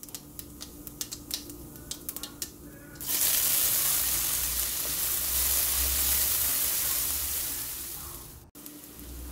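Mustard seeds crackling with scattered pops in hot oil. About three seconds in, chopped shallots go into the pan and sizzle loudly. The sizzle slowly fades and cuts off suddenly near the end.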